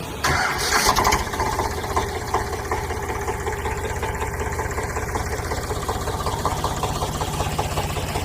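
A vehicle engine starting with a sudden loud burst, then running steadily at idle with a fast, even chugging beat.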